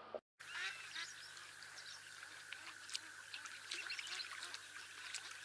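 Many short, high chirping calls from birds, likely domestic fowl such as ducks, coming thick and overlapping over a steady high hum. The sound drops out briefly just after the start.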